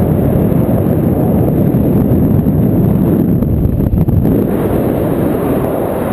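Airflow from a paraglider in flight buffeting the microphone of a pole-held camera: a loud, steady low rush of wind noise that flutters unevenly.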